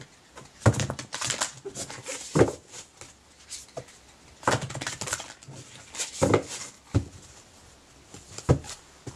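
A deck of animal oracle cards being shuffled and handled by hand: a run of irregular short rustles and taps.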